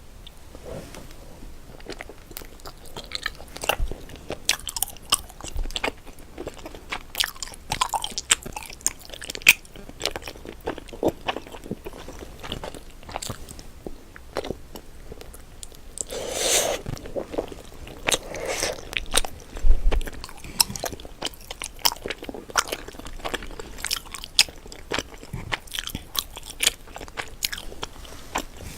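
Close-miked eating from a crab pot: repeated biting and chewing with many short, crisp crunches, and a longer, louder noisy stretch about two-thirds of the way through.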